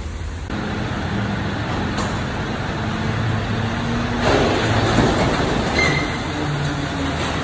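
Rear-end loader garbage truck running, its engine and hydraulic bin lifter humming steadily as a wheelie bin is tipped into the hopper. About four seconds in comes a rush of rubbish tumbling out of the bin, followed by a brief high squeak.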